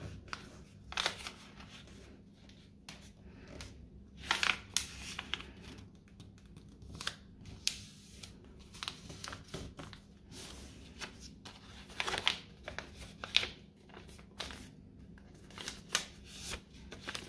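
A sheet of US letter paper being folded and pressed flat by hand on a tabletop: irregular rustles and short crisp creasing strokes as the paper airplane's wing folds are made.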